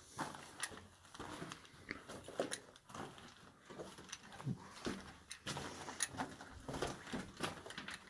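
Footsteps scuffing and crunching on a gravelly rock floor in a mine drift, with irregular small clicks and knocks several times a second.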